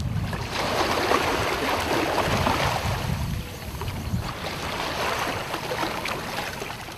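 Water rushing and splashing, a steady dense wash that fades out near the end.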